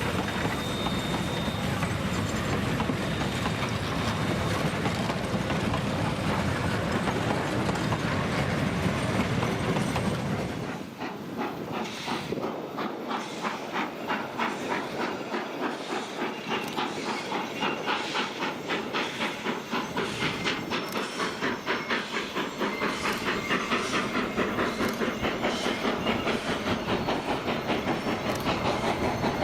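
Ja-class steam locomotive working a vintage train, with a steady rumble and hiss at first. From about ten seconds in the sound settles into a regular beat of roughly two strokes a second.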